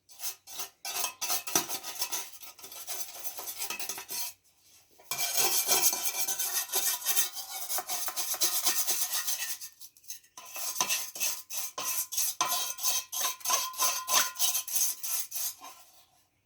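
Rapid scrubbing and scraping strokes on a small-engine part being cleaned of cobwebs and dirt, in three spells with short pauses about four and ten seconds in.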